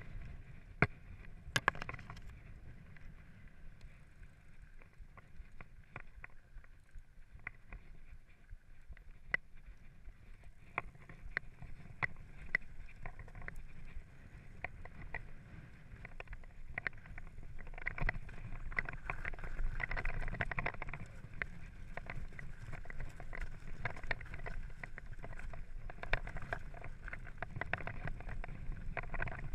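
Mountain bike riding over a rocky, gravelly singletrack, picked up by a camera mounted on the rider: tyres crunching on stones and the chain and frame rattling, with many sharp clicks over a low rumble. It gets louder about two-thirds of the way through.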